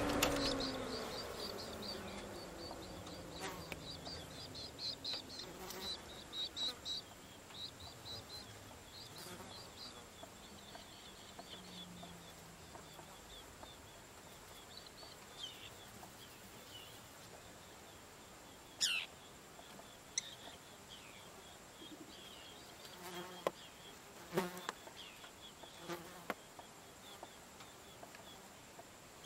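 Faint high insect chirring in short, quickly repeated pulses over a steady thin high tone; the chirring thins out about halfway. Near the middle there is a single sharp falling sweep, and a few sharp clicks come near the end.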